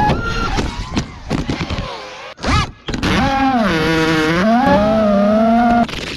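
FPV quadcopter's brushless motors whining as the drone crashes, with a run of sharp clicks and knocks from the frame and props striking and tumbling over the ground. After a short blip, the motors whine steadily in several pitches, dip, level off, and cut off sharply near the end.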